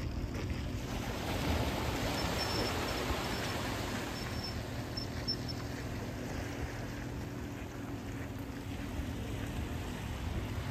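A motor hums steadily under a rush of water-like noise that swells for the first few seconds, with faint high chirps now and then.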